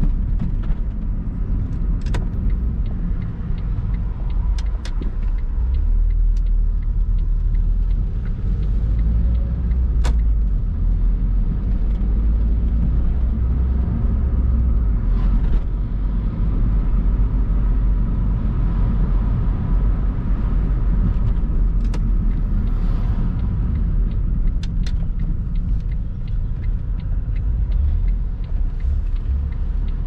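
Car driving slowly along a street, with the steady low rumble of engine and road noise. A few brief clicks or knocks are heard now and then.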